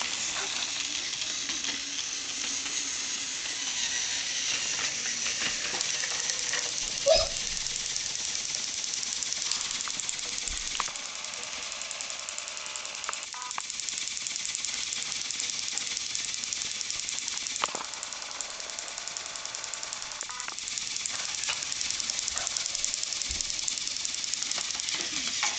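Battery-powered Thomas toy train running on blue plastic track, a steady whirring rattle of its small motor and wheels on the track. There is one sharp knock about seven seconds in and a few fainter clicks later.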